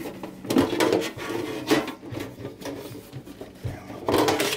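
The top cover of a cassette deck being slid and lifted off the chassis, scraping and clattering in several irregular bursts, the loudest near the end.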